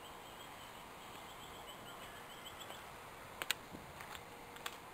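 Faint outdoor ambience with a rapid series of short, high chirps from a small animal, bird or insect, over the first three seconds, then a sharp click about three and a half seconds in and another near the end.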